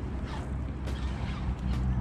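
Spinning reel being cranked to retrieve a lure, its gears giving a light, repeated creaking whir. A low hum grows louder near the end.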